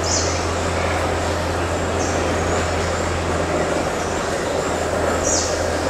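Steady outdoor rumble and hiss with a constant low hum, over which a bird gives a short, high chirp that falls in pitch three times: at the start, about two seconds in, and near the end.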